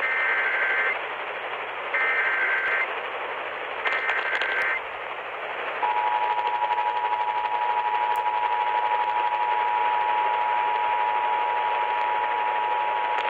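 Emergency Alert System alert received over a hissing radio: three short bursts of SAME header data tones, then the steady two-tone attention signal starting about six seconds in, which heralds a severe thunderstorm warning.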